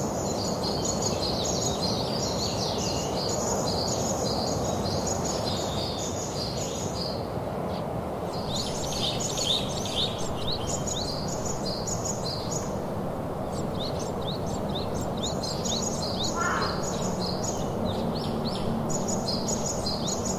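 Many birds chirping quickly and almost continuously, with a couple of short pauses, over a steady rushing background noise. A brief, lower, harsher call comes about two-thirds of the way in.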